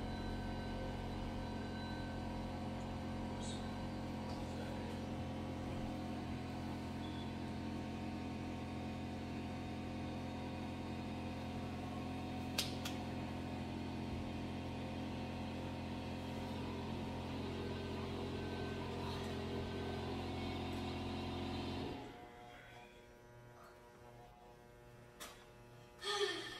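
Electric hair clippers running with a steady hum while tapering the hair around the ear. A single click about halfway through. The hum cuts off abruptly about 22 seconds in.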